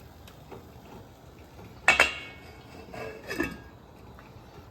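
Metal cookware clanking: one sharp, ringing clank about two seconds in, then a second, shorter clatter about a second later.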